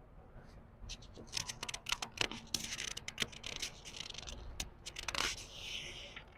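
Book pages being turned slowly by hand: a run of paper crackles and rustles, then a soft swish as a page sweeps over.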